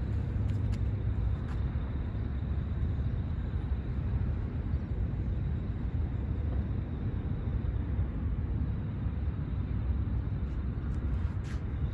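Steady low outdoor rumble with no distinct events, a little unsteady in loudness.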